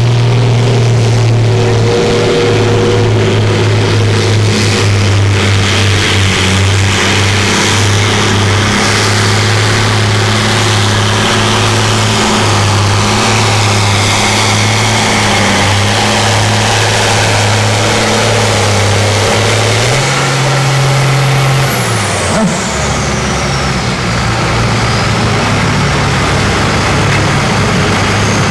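Fendt diesel tractor pulling the weight-transfer sled under full load, its engine holding a steady, deep, loud note. About twenty seconds in, the note rises briefly, then drops to a lower, lighter note as the driver backs off the throttle to stay inside the track, and a high whistle falls away in pitch.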